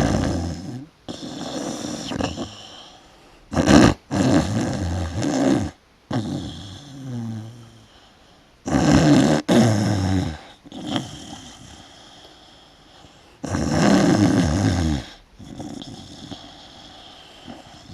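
A man snoring loudly in a slow, regular rhythm. A harsh, rattling snore comes on each in-breath about every five seconds, with quieter breathing between.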